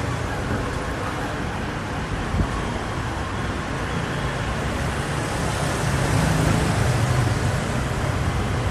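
Steady street traffic, with engine rumble swelling as a vehicle passes close by in the second half, then easing.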